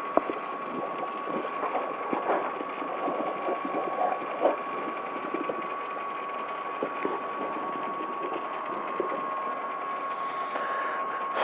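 Toyota Starlet KP62's four-cylinder 4A-GE engine idling, heard from inside the cabin: a steady, rattly running sound with scattered small clicks and a constant high-pitched whine.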